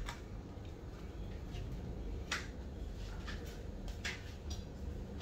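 Fresh banana leaves rustling and crinkling in short, separate bursts as they are handled and pressed down over a cooking pan, over a steady low rumble.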